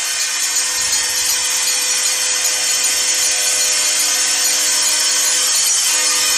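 Arena crowd cheering after a home goal in an ice hockey game: a steady loud roar with a few held tones underneath.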